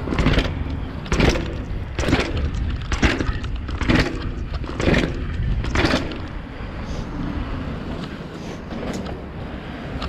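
Canyon Sender downhill mountain bike clattering down a paved staircase: about six loud knocks of the wheels and frame, roughly a second apart. After that come tyre noise on the paving and wind rumble on the microphone. The rider calls it very noisy.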